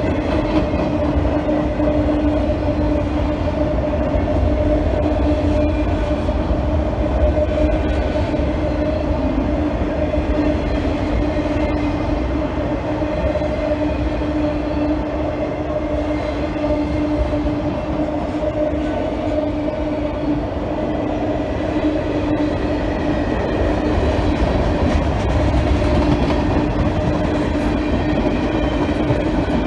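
Freight cars of a mixed freight train (autoracks, then tank cars) rolling steadily past close by, their wheels rumbling on the rails, with a steady hum running through.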